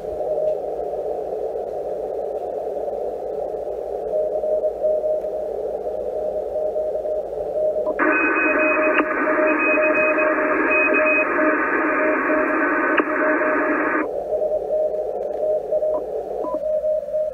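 ICOM IC-746 HF transceiver's receiver audio in CW mode on the 17 m band: band hiss with a keyed Morse code signal as a tone near 600 Hz, narrowed by the DSP audio peak filter. About eight seconds in the filter is switched off, and the hiss suddenly widens and gets louder, with another, higher Morse signal. About six seconds later it snaps back to the narrow filtered sound, and it narrows a little further near the end as a narrower filter width is selected.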